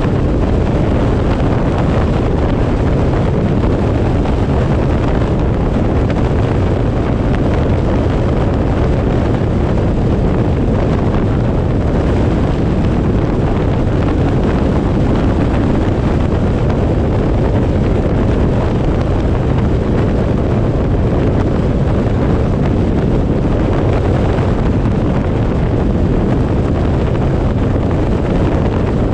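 Steady rumble of wind buffeting the microphone together with road noise from a vehicle driving along a highway, deep and unchanging throughout.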